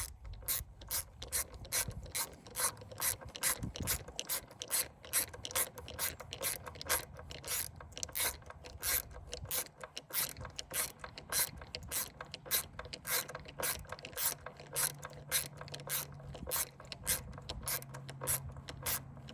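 Ratcheting screwdriver clicking steadily, about three clicks a second, as a screw is turned by hand.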